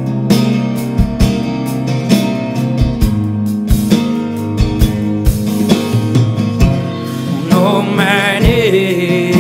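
A band playing live: acoustic guitar, electric bass and drum kit in an instrumental passage with a steady beat. About eight seconds in, a wavering wordless sung line comes in over the band.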